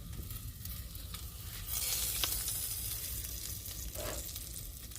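Hot air-fried pork ribs sizzling steadily, the hiss growing louder about two seconds in, with a few light clicks from handling.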